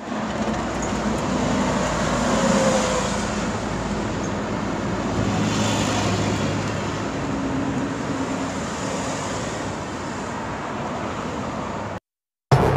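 Steady road-traffic noise: a continuous rushing sound with a faint low hum, cutting off suddenly near the end.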